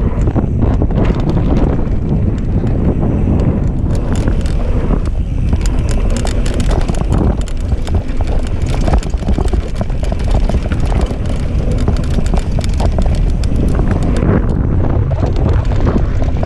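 Mountain bike descending a dirt trail at speed: tyres rolling over packed dirt and the bike's chain and parts rattling over bumps in dense clicks, under a continuous rumble of wind buffeting the action-camera microphone.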